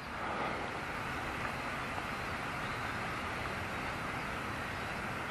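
Steady outdoor background noise, an even rushing hiss with no distinct events.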